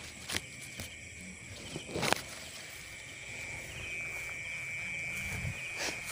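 A steady high trill of night insects, which grows stronger about halfway through. Over it come rustling and a few sharp knocks as the phone is pushed through leaves and grass, the loudest knock about two seconds in.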